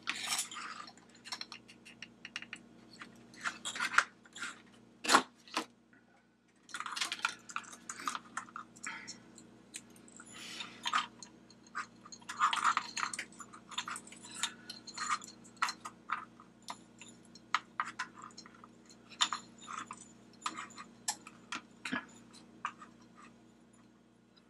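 Irregular clicks, taps and scrapes of hard plastic as a flashlight's head, body and wiring are handled and pushed together, with one sharper knock about five seconds in.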